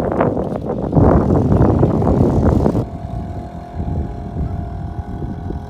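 Tour boat's engine running under way: a loud rushing noise for about three seconds, then an abrupt drop to a quieter, steady engine hum.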